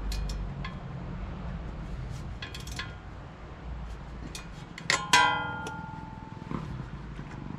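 Light metal clicks and taps from hand work on an ATV's disc brake caliper and rotor, then a sharp metal clang about five seconds in that rings on for about a second, with one more light knock after it.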